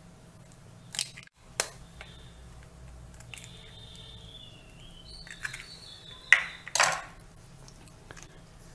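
Raw eggs cracked open with a kitchen knife: a couple of light taps on the shell about a second in, then two louder sharp cracks near the end.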